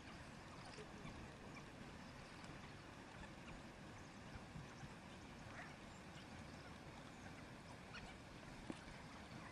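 Faint, steady outdoor background noise, with a few brief faint chirps and clicks.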